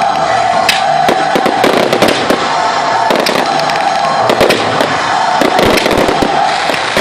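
Fireworks display going off in a dense barrage of irregular bangs and crackles, with music underneath.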